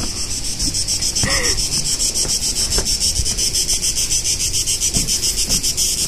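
A loud, evenly pulsing insect chorus, about seven pulses a second, high-pitched and continuous.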